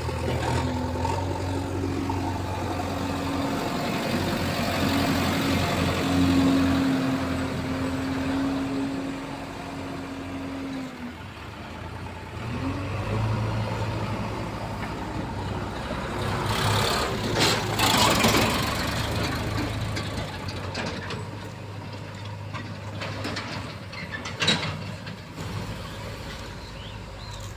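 JCB 3DX backhoe loader's diesel engine running steadily at work, with a steady higher hum over it for the first ten seconds or so. About seventeen seconds in comes a louder, noisy rushing sound, the loudest part.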